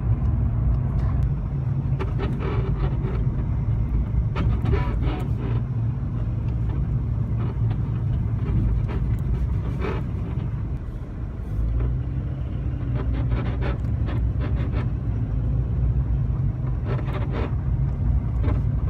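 VW Polo sedan driven over bumps, heard inside the cabin: steady low road rumble with short rubbery squeaks from the suspension's rubber bushings coming in several separate bursts as the car hits bumps. The squeak is worse in winter, and the owner means to replace the bushings.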